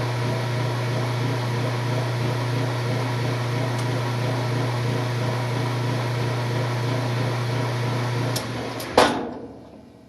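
Washing machine running with a steady low hum. About eight seconds in the hum cuts out with a couple of clicks and a loud clunk, and the running noise dies away within about a second: the machine stopping partway through its spin cycle.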